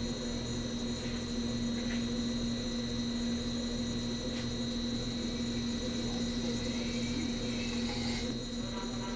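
Metalworking machine running steadily with a constant hum and a thin high whine.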